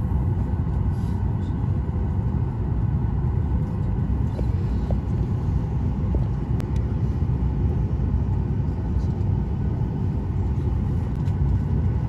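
Steady low rumble of a Boeing 737-900ER airliner cabin on the ground before takeoff, with a few faint clicks.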